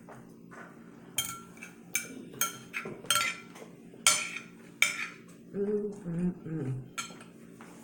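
Eating utensils clinking and scraping against a dish, with about eight sharp clinks at uneven intervals. A brief hum of a voice sliding down in pitch comes in near the end.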